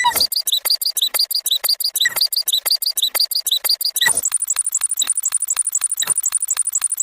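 A short sneeze-and-huff sound clip run through digital effects: pitched far up and looped rapidly, many squeaky repeats a second, jumping higher again about four seconds in.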